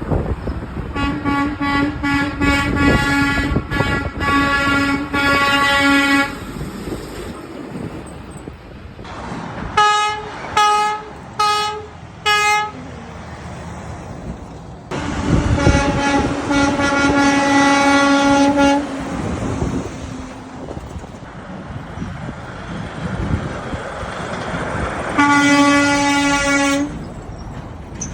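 Passing trucks sounding their air horns over steady traffic and engine noise. A string of blasts comes in the first six seconds, then four short, higher-pitched toots around ten seconds in, a long blast at about fifteen seconds, and a shorter blast near the end.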